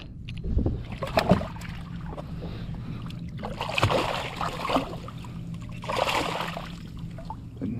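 A weakfish thrashing in a landing net at the side of a kayak, splashing water in bursts that are strongest about four and six seconds in, after a few knocks near the start. A faint steady low hum runs underneath.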